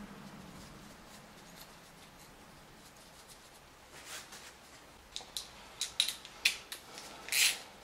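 Light metallic clicks and clinks of small 10 mm nuts being threaded by hand onto cam sprocket studs. Faint for the first few seconds, then a handful of irregular clicks and a brief rattle near the end.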